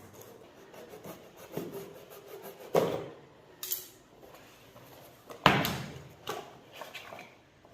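A package being handled and opened by hand: irregular knocks, rubs and scrapes, with two louder thumps about three seconds apart and a brief hissing scrape between them.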